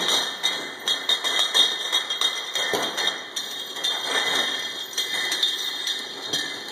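Automatic round-bottle labelling machine running: a steady high-pitched whine with frequent irregular clicks and knocks as bottles clatter through the conveyor and labelling station.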